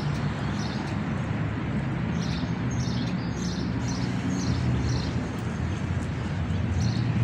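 Street ambience: a steady rumble of traffic, with a bird chirping in a quick run of about eight short calls in the middle.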